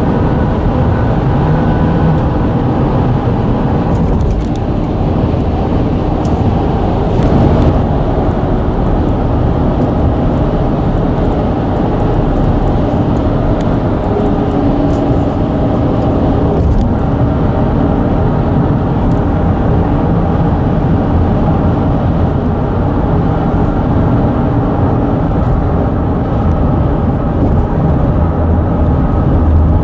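Loud, steady low rumble of road traffic on a bridge, the bridge deck vibrating under the passing vehicles.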